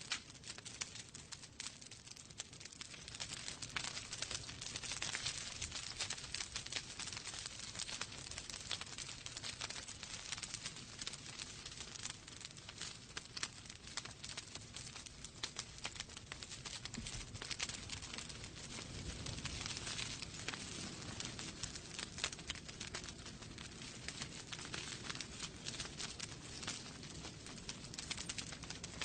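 Wood fire crackling in a fireplace: a dense, irregular run of sharp pops and snaps over a soft steady hiss of the flames.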